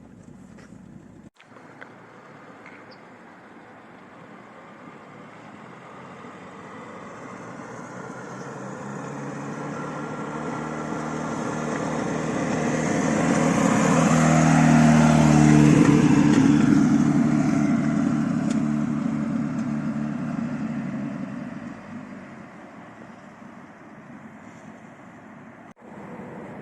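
Lada Niva (VAZ-21218) driving past: the engine and tyres grow steadily louder to a peak about halfway through, then fade as it moves away.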